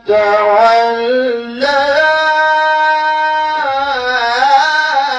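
A male Quran reciter chanting in the melodic mujawwad style, holding long ornamented notes on the words "thumma tawallā". A new phrase starts about a second and a half in, held on a steady note, then turns into a wavering melisma near the end.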